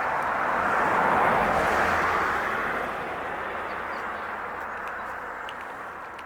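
A passing road vehicle: a rush of engine and tyre noise that swells to its loudest about a second in, then slowly fades away, with a few faint bird chirps near the end.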